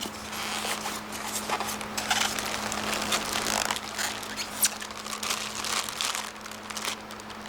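Packaging rustling and crinkling irregularly as parts are handled and lifted out of the box, with one sharper knock about four and a half seconds in, over a steady low hum.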